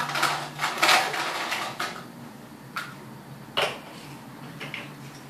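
Plastic balls clattering and clinking against a glass bowl as a hand rummages through them, thinning after about two seconds to a few separate sharp clicks.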